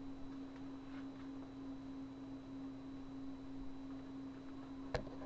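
A steady low hum at one constant pitch over faint hiss, with a sharp click near the end.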